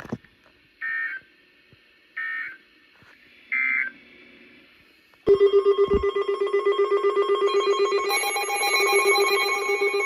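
Three short bursts of EAS/SAME digital data tones, the end-of-message signal that closes the NOAA Weather Radio warning. About five seconds in, a loud, rapidly pulsing electronic alarm tone starts and keeps going, growing fuller near the end.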